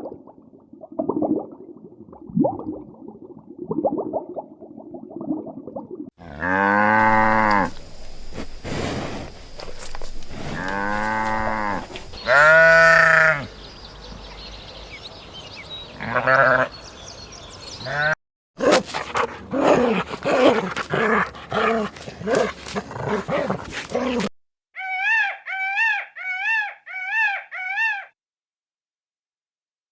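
A run of farm animal calls from several short clips, with several long bleats in the middle, likely from sheep. Near the end comes a quick series of five short, high, identical calls.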